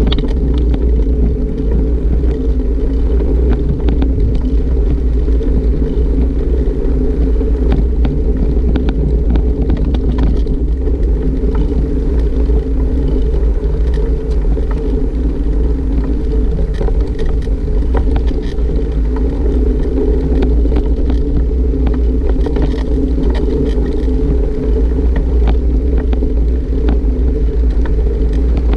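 Steady low rumble of wind and movement noise on a moving GoPro's microphone, with scattered faint clicks and rattles.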